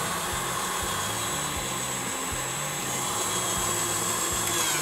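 KitchenAid stand mixer running steadily with its whisk, a motor whine with the whisk whirring through eggs and sugar in a glass bowl as they are beaten pale and creamy.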